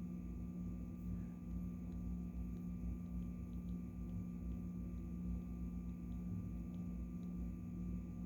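A steady low hum with an uneven rumble beneath it and a few faint ticks.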